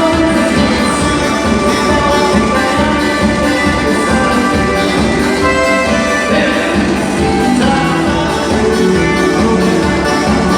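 Loud instrumental music with a steady beat and held instrument notes.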